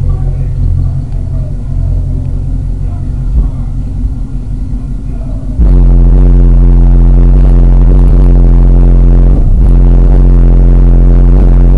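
Hip-hop track played through two 12-inch MTX Jackhammer subwoofers in a car, with heavy deep bass. About halfway through the volume jumps suddenly to a much louder, bass-dominated level.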